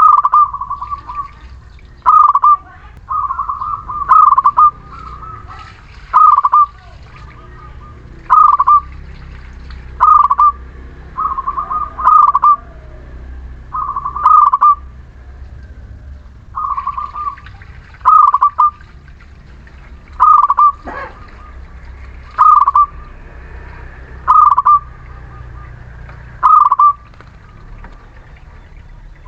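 Zebra dove (perkutut) cooing. A quick run of coo notes comes at the start, then short, loud coos follow about every two seconds, over a steady low rumble.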